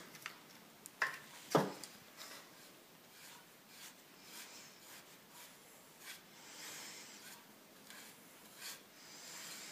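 A small paintbrush dry-brushing red paint onto the pine slats of a wooden crate for a patina: a soft, scratchy rubbing in uneven strokes. A couple of sharp wooden knocks between one and two seconds in as the crate is handled.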